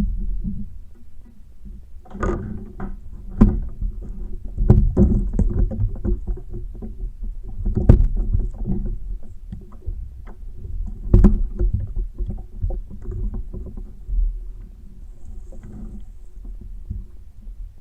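A fishing kayak being handled on the water: irregular knocks and bumps on the hull, four of them sharp, over a steady low rumble of water and handling noise.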